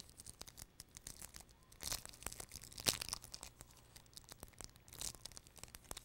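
Wrapper of a block of polymer clay being torn and crinkled open by hand: irregular faint crackling, with a few louder rips about two, three and five seconds in.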